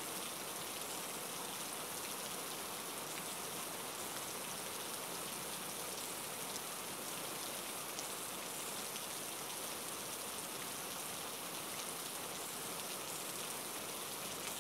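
Heavy rain falling: a steady, even hiss with scattered sharp ticks of drops striking close by.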